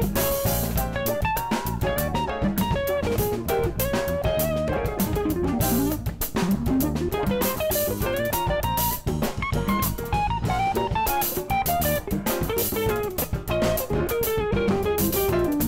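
Funk band instrumental: a hollow-body electric guitar plays a single-note line that weaves up and down. Under it run a five-string electric bass, drum kit with K Zildjian cymbals, congas and upright piano, on a steady beat.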